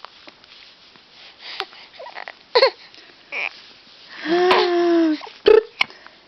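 Baby with hiccups fussing: a few short whimpers and one longer whine of about a second, about four seconds in, with a short sharp hiccup-like sound near the end.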